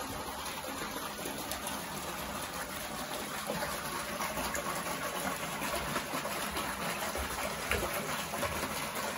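Water gushing steadily from a spout into a small garden pond, a continuous splashing rush.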